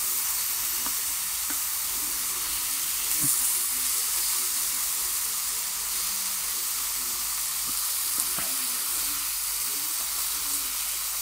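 Beef burgers and banana slices sizzling steadily in a hot frying pan. A few light clicks and scrapes come from a spatula pushing the burgers around the pan.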